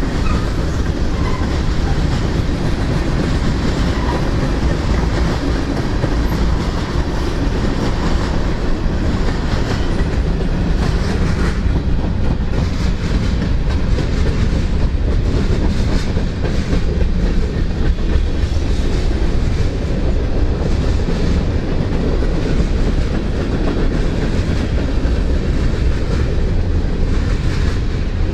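A CSX freight train's cars rolling past at close range in a steady loud rumble, with the wheels clicking over the rail joints, the clicks more distinct from about halfway.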